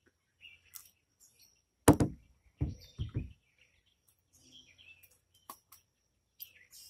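Beeman R7 .177 break-barrel spring-piston air rifle fired once about two seconds in: a single sudden report, the loudest sound here. A few knocks follow as the rifle is handled and laid on the wooden porch rail, then faint small clicks near the end as a pellet tin is opened.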